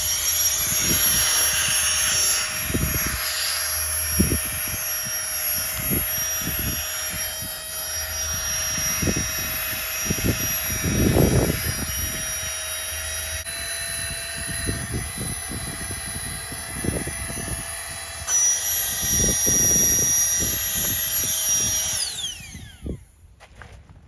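A small high-speed electric motor spins up, runs steadily with a whine for about twenty seconds, then winds down near the end. Dull low knocks come now and then while it runs.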